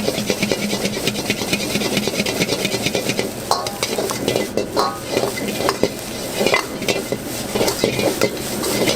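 Metal spatula stirring and scraping egg fried rice in a hot wok: rapid clattering strokes over frying sizzle, with a few ringing clangs of spatula on wok.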